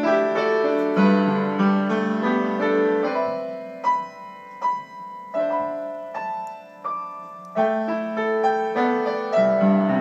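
Upright piano being played: a slow melody over chords, thinning to a few single ringing high notes about four seconds in, then fuller chords again near the end.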